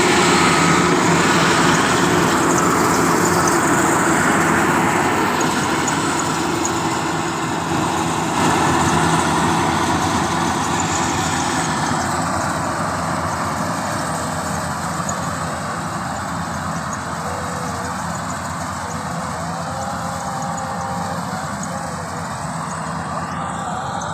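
Combine harvester running steadily, its engine and machinery giving a dense mechanical noise that grows gradually quieter.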